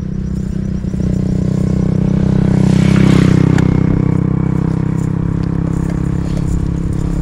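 Small boat engine running steadily, growing louder to a peak about three seconds in and then easing off, as the boat passes close by.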